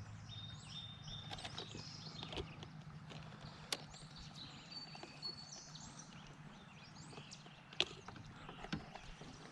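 Quiet riverside ambience: small birds chirping and singing over a low steady hum, with a few sharp clicks, the clearest about four seconds in and again near the end.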